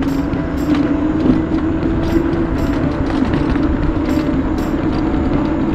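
Electric mobility scooter riding along a paved road on a low battery: a steady motor whine with a slight drift in pitch over road and wind rumble, and sharp ticking clicks about twice a second.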